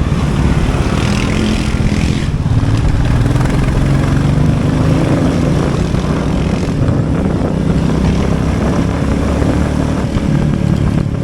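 Royal Enfield Bullet 350 Classic motorcycle's single-cylinder engine running steadily under way, with wind rushing over the microphone.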